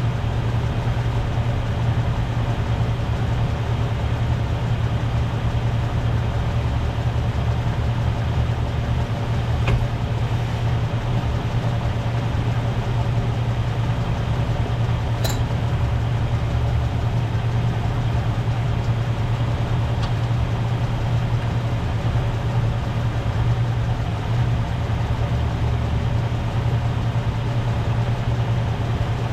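Steady low mechanical hum, like an engine or machine idling, unchanging throughout, with two faint clicks partway through.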